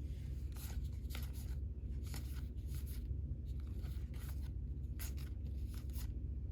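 Trading cards slid and flipped through by hand: a string of short, papery swishes and rubs over a steady low hum.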